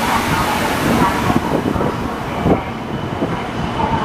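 Shinkansen train noise at the platform: a steady rushing sound with a single knock about two and a half seconds in.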